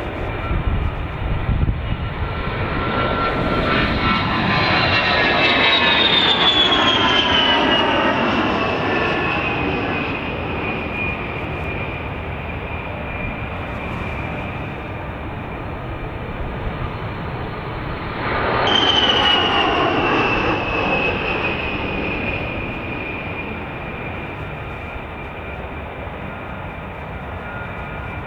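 Military jet aircraft going past, engine noise swelling and its high whine falling in pitch as it passes. About two-thirds in, a second pass begins suddenly with the same falling whine, then fades.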